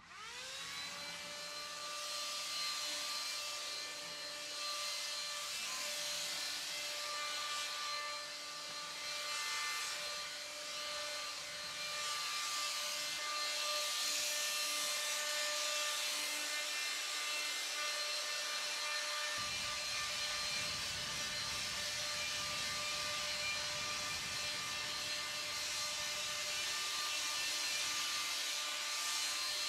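Handheld cordless electric paint sprayer spinning up at the start and then running steadily, a motor whine with a loud hiss of air as wood finish is sprayed onto planks.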